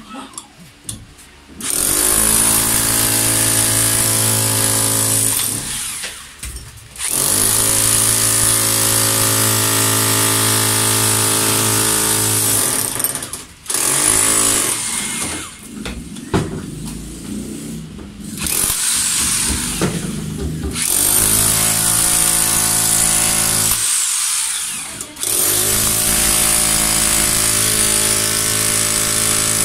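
Ingco electric rotary hammer chipping concrete, running in bursts of several seconds with short pauses between them.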